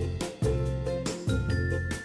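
Background music: a bright children's tune with a steady bass and bell-like chiming notes.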